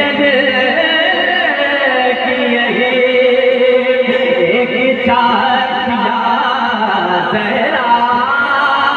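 A man singing a naat, an Islamic devotional poem, into a microphone, holding long notes that bend and slide in pitch.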